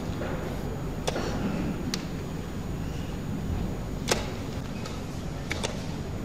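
A few sharp, isolated clicks, the loudest about four seconds in, over a steady low room hum.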